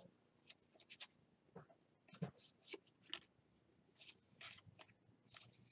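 Faint, brief swishes of 2018 Topps Heritage baseball cards sliding against one another as a stack is thumbed through by hand, coming in short clusters of quick brushes.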